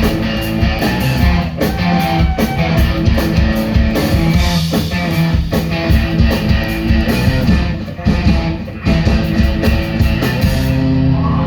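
Rock band playing live, with drum kit, electric guitars and bass. Near the end the drumming stops and a held chord rings on.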